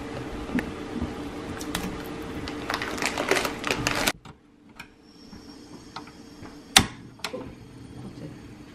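A metal spoon clinking and tapping against a stainless steel hot pot, the taps thickening into a quick flurry of clicks about three to four seconds in. The sound then drops off suddenly, and near the end a single sharp click comes from the control knob of a portable butane stove being turned.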